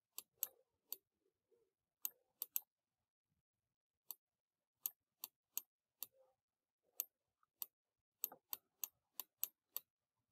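Faint, sharp clicks of a stylus tapping a pen tablet as handwriting is written on it: about twenty clicks in irregular clusters with short pauses.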